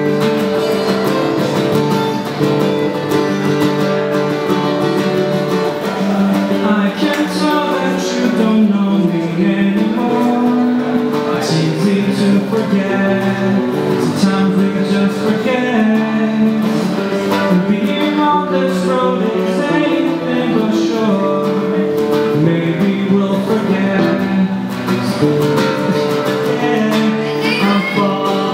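Two acoustic guitars played together, one strumming chords while the other picks a melody, with a man's voice singing over them.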